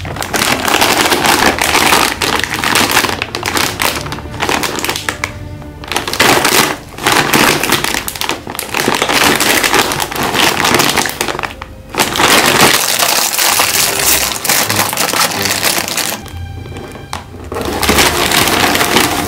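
Metallised plastic snack bags crinkling and crackling loudly as they are handled and pulled from a cardboard box, with soft background music underneath.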